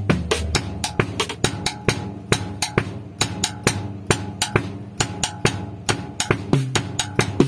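Drum kit played with sticks in a merengue rhythm that imitates the tambora, with fast, even strokes on the toms and snare. The deep tom notes thin out in the middle and come back strongly near the end.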